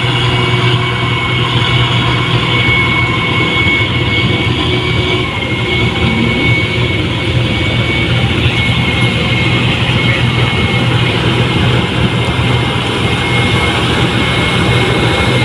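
Rice combine harvester's diesel engine running steadily under load, with a steady high whine over its low hum.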